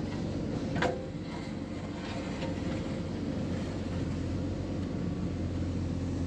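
JCB 3DX backhoe loader's diesel engine running steadily, with a sharp knock about a second in and another at the very end.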